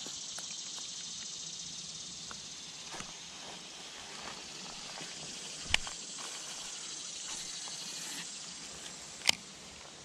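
Steady high-pitched buzzing of summer insects, with two sharp clicks, one near the middle and one near the end, that are the loudest sounds.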